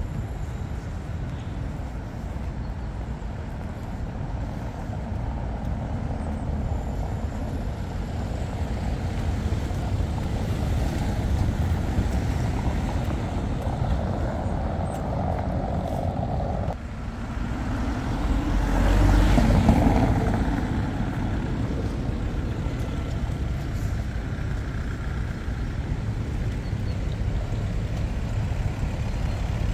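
Street traffic: a steady rumble of passing vehicles, with one vehicle swelling loudly past about two-thirds of the way through.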